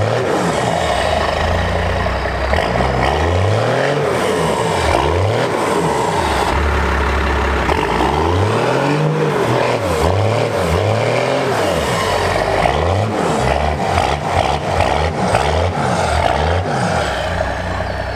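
Cummins diesel in a first-generation Dodge Ram pickup, revving hard and dropping back again and again, its pitch rising and falling about a dozen times as the truck drives through mud.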